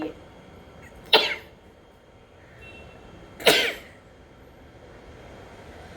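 A person's voice bursting out sharply twice, about two seconds apart, each burst short and loud with a falling pitch, in the manner of a cough or sneeze.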